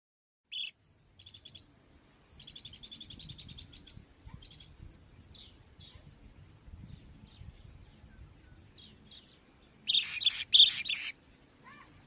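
Young bird chirping: a short high chirp, a quick run of rapid chirps, then scattered single chirps, and two loud, harsh rasping bursts about ten seconds in.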